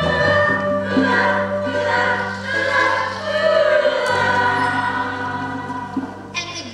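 Musical-theatre ensemble singing in chorus over an instrumental accompaniment, holding long chords above a steady low note.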